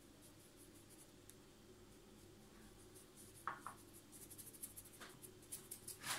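Faint scratchy rustle of ground white pepper being pinched and sprinkled by hand onto raw pork loin, a patter of light ticks from fingers and falling grains. It starts about halfway through, grows busier toward the end, and has a couple of small knocks.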